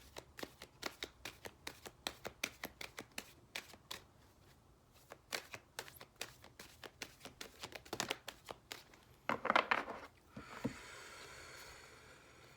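Deck of oracle cards being shuffled by hand: a fast run of crisp card clicks, then a louder rustling flurry about nine and a half seconds in. After that comes a faint steady hiss.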